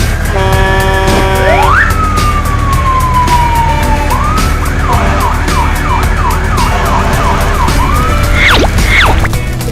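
Cartoon sound effects over background music: a whistle-like tone glides slowly up and then down, with a brief held chord-like honk about half a second in. A run of about nine short falling chirps follows, then a few quick upward swoops near the end.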